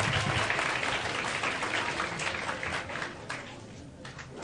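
Audience applauding, a dense patter of claps that dies away about three and a half seconds in.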